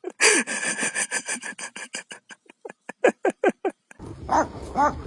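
A dog's rapid series of short yelps, then repeated barks about twice a second near the end.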